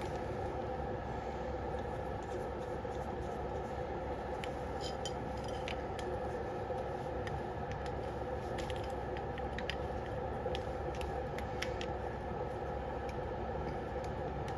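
Small metal clicks and clinks from handling and fitting carburetor parts, the float bowl going back on and being tightened, scattered through the second two-thirds over a steady background hum.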